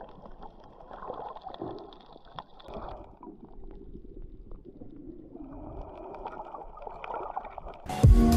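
Muffled water gurgling and sloshing, picked up by a camera underwater. About eight seconds in, loud music with a steady beat starts abruptly.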